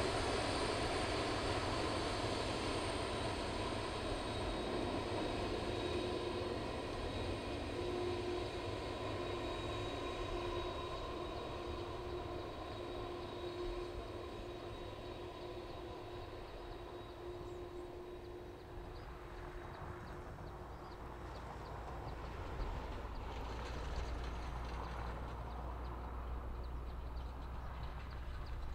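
Twin jet engines of a Boeing 767-300F freighter running at taxi power: a steady whine over a rushing noise that fades over the first twenty seconds. A low rumble swells again near the end.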